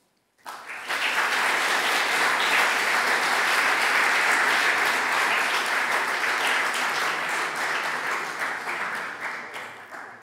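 Audience applauding: many hands clapping that start about half a second in, hold steady, and die away near the end.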